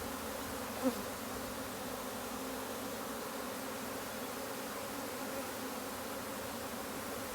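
A swarm of honeybees buzzing in a steady hum, just shaken from a branch into a new hive box. One short louder sound comes about a second in.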